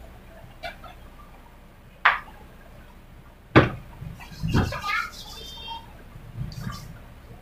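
Two sharp knocks about a second and a half apart, followed by a short jumble of clatter and high chirping sounds.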